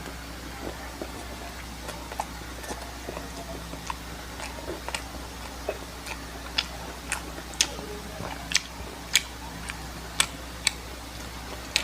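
Close-miked chewing of food: irregular sharp, crisp clicks and crunches, sparse at first and louder and more frequent over the second half.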